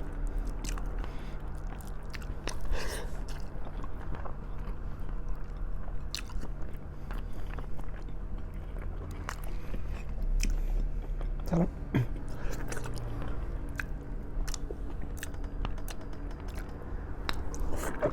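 Close-miked eating of braised pork trotters (humba): repeated biting and chewing with small crunches and clicks.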